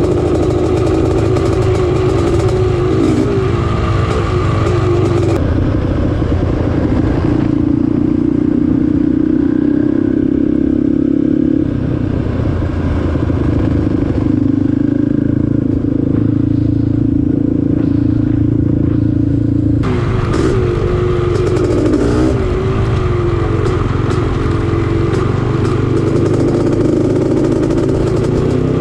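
Off-road vehicle engine running loudly throughout, its pitch rising and falling as the throttle and speed change while riding.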